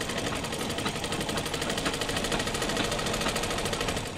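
Domestic sewing machine running steadily, stitching a seam in a fast, even rhythm of needle strokes.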